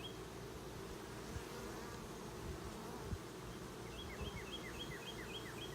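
Honeybees buzzing steadily around an open, full hive. A single knock comes about three seconds in, and from about four seconds in a small bird sings a quick run of repeated chirps.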